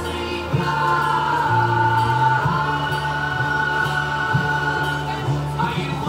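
Background music: held sung voices over a bass line that steps from note to note.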